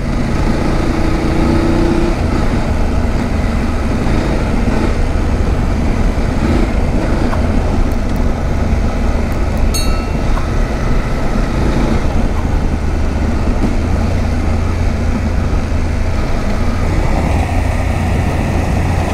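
BMW F850GS parallel-twin engine running at a steady cruise on a dirt road, under a constant rush of wind and tyre noise on loose gravel. A brief high click sounds about ten seconds in.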